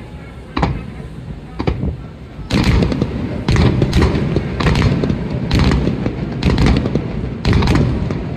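Fireworks display: two separate bangs in the first two seconds, then from about two and a half seconds in a rapid run of shell bursts, one or two a second, over a continuous rumble.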